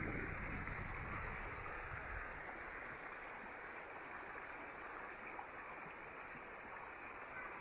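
Shallow river running over rocks in a riffle: a steady rush of flowing water. A low rumble underneath fades out about two seconds in.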